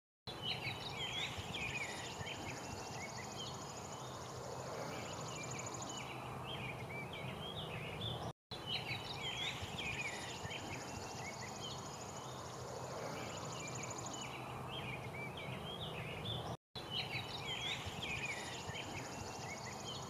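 Looped nature ambience: many small birds chirping over a steady high insect trill that stops partway through each loop. The same loop of about eight seconds plays more than twice, with a brief cut-out each time it restarts.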